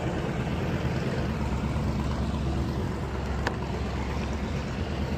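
Speedboat engine idling as the boat eases in to dock, a low steady rumble.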